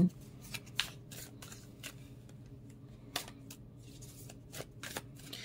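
A deck of tarot cards being handled: a scatter of soft, short clicks and rustles of cards against each other and the hands.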